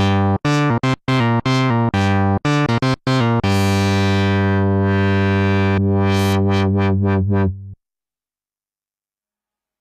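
Sequential Pro 3 analog synthesizer playing a run of short, clipped low notes, then one long held low note whose bright top fades away while the body holds. It cuts off sharply about eight seconds in, and silence follows.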